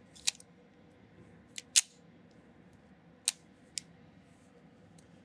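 Semi-automatic pistol being loaded and made ready: about five short, sharp metallic clicks as the magazine is seated and the slide is worked to chamber a round.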